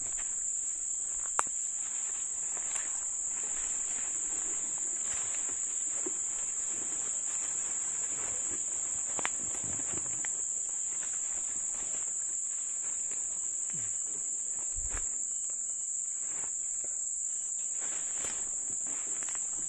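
Steady high-pitched drone of insects in riverside vegetation, unbroken throughout, with scattered light rustles and clicks and one sharp click about a second and a half in.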